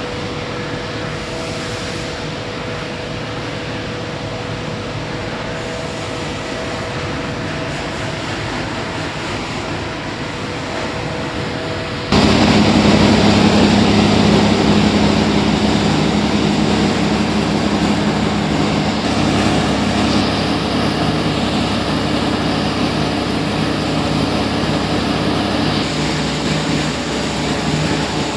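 Waste-tire recycling line running: the tire shredder and its belt conveyors make a steady industrial machine noise, at first with two faint steady tones. About twelve seconds in it jumps abruptly louder and rougher and stays that way.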